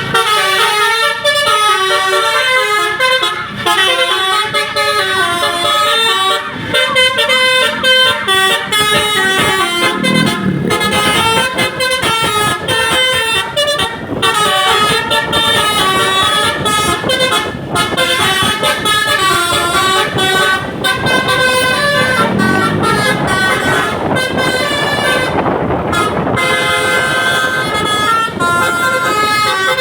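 A bus's basuri telolet horn, a multi-tone musical horn, playing a tune note after note without a break, over vehicle noise.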